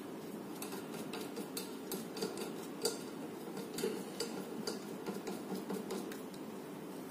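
Irregular small clicks and light metallic knocks from a pop filter and its gooseneck clamp being handled and swung into position on a metal microphone boom arm, with the sharpest knocks around three and four seconds in.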